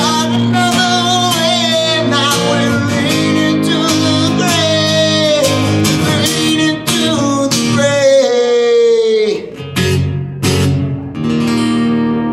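A man singing live over his own strummed acoustic guitar. About eight seconds in he holds a long note that slides down, after which the guitar strums on without the voice.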